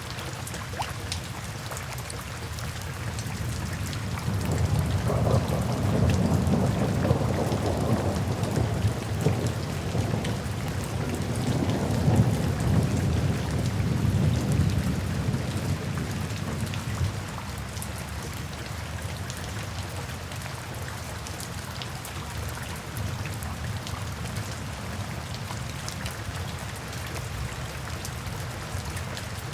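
Steady rainfall hissing, with a long rolling rumble of thunder that swells about four seconds in, peaks in the middle and dies away after about thirteen seconds.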